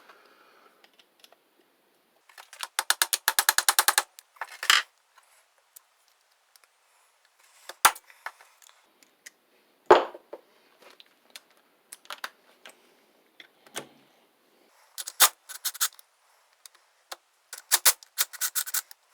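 Socket ratchet clicking in quick runs, three times, as the connecting rod cap bolts are worked loose, with a few single metal clinks and knocks from tools and parts in between.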